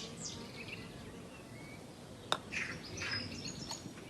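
Birds chirping faintly in short high twitters, with a single sharp click a little over two seconds in.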